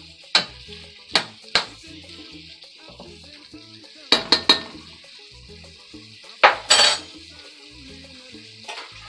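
Metal spoon stirring and scraping a metal pot of beef strips, peppers and onions as they simmer in their own juices, over a steady sizzle. Sharp spoon-on-pot clinks come in small clusters, the loudest about two-thirds of the way through.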